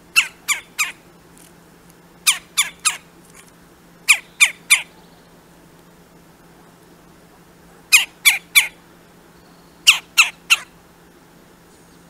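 Red-bellied woodpecker calling loudly in sets of three short, sharp notes, each falling in pitch, five sets a couple of seconds apart.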